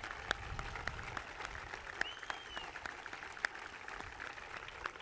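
Crowd applauding, a dense patter of clapping that thins out and gets quieter toward the end.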